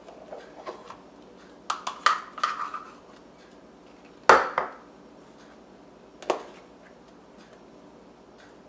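A spoon scraping thick pudding mixture out of a measuring cup into a foil pie pan, with clinks and taps of utensil on cup: a quick run of small clinks about two seconds in, a sharp knock about four seconds in (the loudest), and another about six seconds in.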